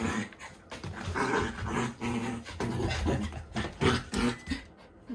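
A Shiba Inu puppy making huffing and growling play noises as she chases and pounces on a ball, with her paws scuffling and knocking on foam floor mats.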